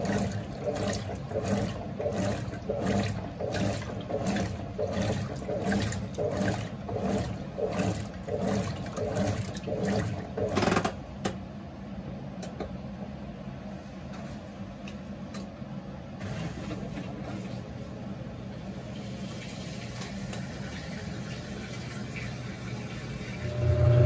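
GE Imagination 10 kg top-load washing machine agitating a wash load, the agitator swishing the water back and forth about twice a second. About eleven seconds in the agitation stops and a quieter steady hum remains.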